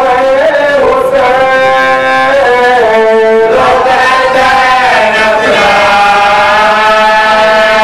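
Men chanting a marsiya, an Urdu mourning elegy, unaccompanied, in long held notes that slide and waver in pitch.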